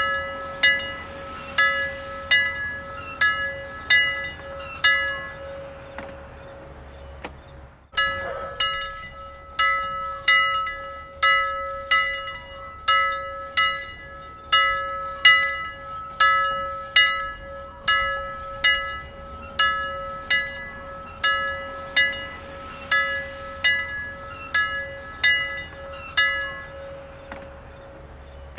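Church bell ringing, struck by its clapper at an even pace of a little more than once a second, with a steady hum ringing on between strikes. The ringing breaks off briefly about eight seconds in, then carries on at the same pace.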